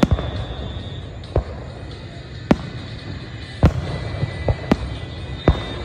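Aerial fireworks shells bursting: about eight sharp bangs at uneven intervals, several close together in the second half, over a steady low rumble.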